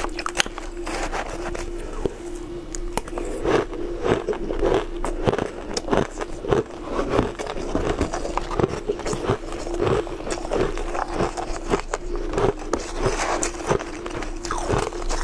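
Mouthful of crushed ice being chewed close to the microphone: rapid, irregular crunches and crackles with no pauses.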